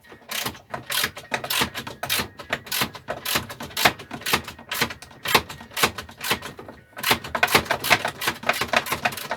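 Ratchet wrench clicking in quick runs as a long engine-mounting bolt is wound out of a lawn mower deck.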